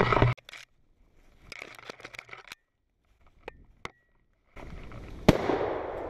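A single shotgun shot about five seconds in, sharp and sudden, fired at a flushed ruffed grouse in the woods. Before it is a few seconds of near quiet with faint clicks, then a steady noise rising about a second before the shot.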